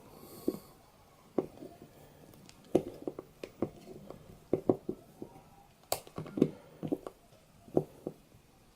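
Brass screw being turned into wood by hand with a multi-tool's Phillips screwdriver: irregular short clicks and creaks, many of them, as the screw turns and bites.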